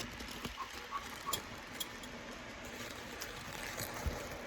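Faint handling noise: a few scattered small clicks and light knocks over a quiet background hiss.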